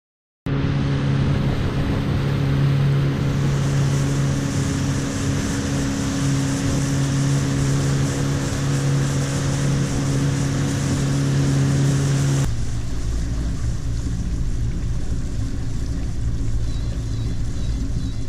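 Small boat's engine running at a steady speed with a steady hum, cutting abruptly about two-thirds of the way through to a lower, even rumble as the boat idles through calm water.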